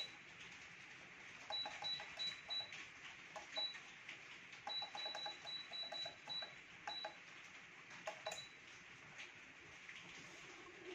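Freesub P8001X heat press's digital control panel beeping at each button press: short high beeps, singly and in quick runs, as the temperature and time settings are stepped.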